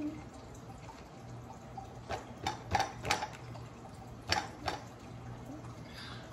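Eating sounds: several short, wet mouth clicks and smacks of someone chewing food, bunched between about two and five seconds in, over a low steady hum.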